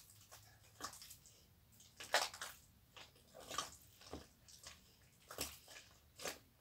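A hand squeezing and kneading soft, watery slime in a plastic bowl: faint, irregular wet squelches about once a second. Activator is being worked in to turn the soft, gel-like slime firm.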